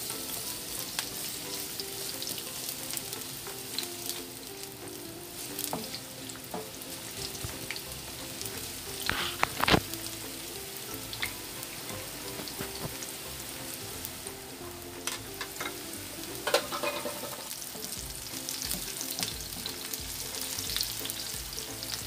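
Sliced red onions sizzling in hot oil in a nonstick frying pan, stirred with a wooden spatula that scrapes and knocks against the pan, with the sharpest knocks about nine to ten seconds in and again around sixteen seconds in.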